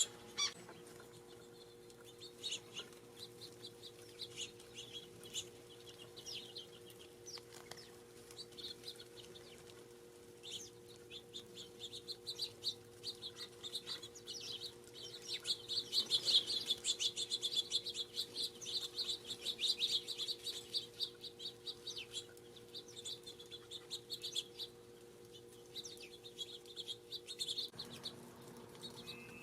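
Small birds at a feeder chirping and chattering: many short, quick high chirps that thicken into a dense run through the middle, over a faint steady hum.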